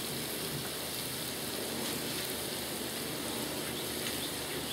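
Steady sizzle of thin-sliced chicken under provolone and buns toasting face down in butter on a Blackstone flat-top griddle.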